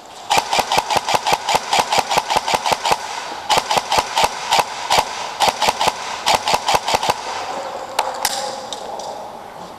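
Airsoft electric rifle (AEG) firing close by in fast strings of shots: one long string of about three seconds, then two shorter strings with brief pauses, followed by two single shots about eight seconds in.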